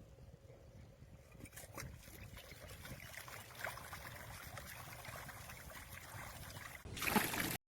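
Water trickling and splashing, likely from the sump pump's flow, growing louder from about a second and a half in, with a louder burst just before the sound cuts off abruptly near the end.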